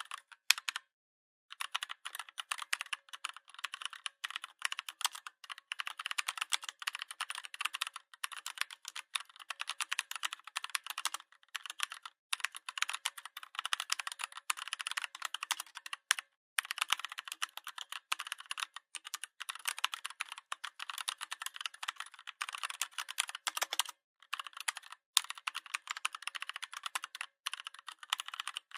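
Rapid, continuous typing on a Redragon 61-key compact mechanical keyboard: a dense stream of key clicks that breaks off briefly a few times.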